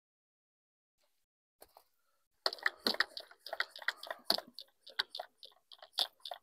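Hand trigger sprayer squirting sugar water onto the frames of an open beehive, in quick repeated pumps of about three or four a second, starting a couple of seconds in.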